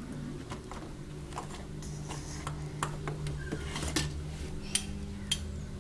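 Light clicks and knocks from a toddler handling a plastic toy kitchen's oven door and the play things inside it, a few scattered taps with sharper clicks near the end. A steady low hum runs underneath.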